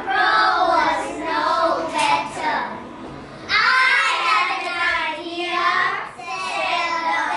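A group of young children singing together in unison, in phrases with short breaks, the loudest phrase starting about halfway through.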